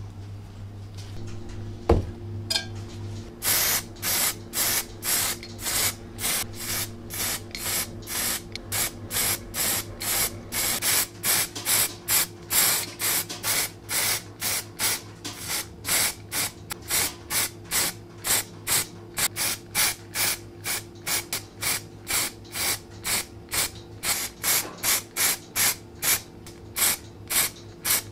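Aerosol can of Dupli-Color Thermo heat-resistant spray paint spraying in short hissing bursts, about two a second.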